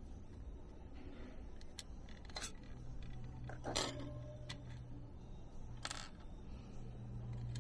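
Small metal parts clicking and clinking against a stainless-steel tray: several separate sharp ticks, the loudest about four seconds in.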